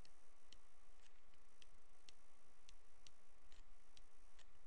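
Stylus tapping on a tablet screen while handwriting: a faint, irregular series of light ticks, about three a second.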